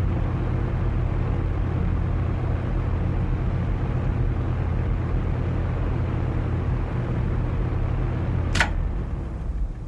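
Electric fan running steadily at low speed with a low hum. Near the end it is switched off with a sharp click, and the hum begins to fade as the blades wind down.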